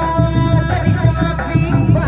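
Live Sundanese reak music for a kuda lumping performance: fast, steady drumming under a held melody line.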